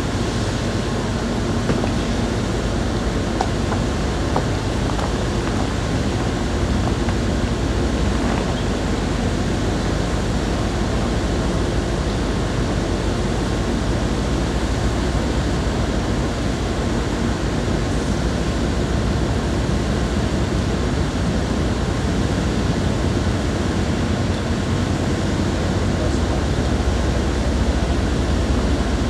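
Steady hum and hiss from an Amtrak bilevel passenger train standing at the platform with its engine running.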